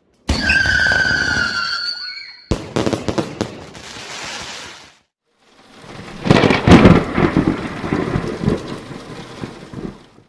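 Consumer firework compound cakes firing in short cut-together clips: a whistling shot with a loud bang, then a burst of dense crackling, then rapid volleys of bangs and crackle fading in about halfway through.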